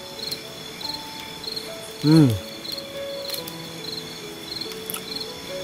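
Night insects chirping in a regular rhythm, about three chirps a second, over a steady high-pitched insect drone, with soft background music. About two seconds in, a person makes a short falling 'mm'.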